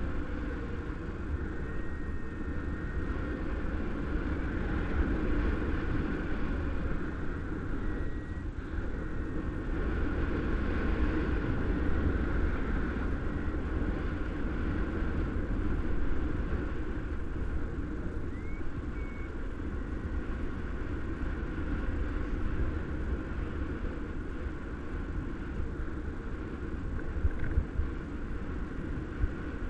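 Steady wind rushing and buffeting over the camera microphone of a paraglider in flight, a continuous low rumble with a hiss above it.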